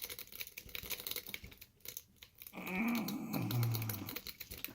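Light, irregular metallic clicking of a rake pick and tension wrench working the pins inside an ABUS 83/55 padlock's keyway, with a drawn-out groan about two and a half seconds in.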